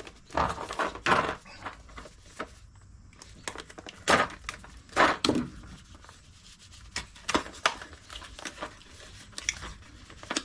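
Socket set being handled: irregular clicks and knocks of sockets and their case being moved about, loudest about four and five seconds in.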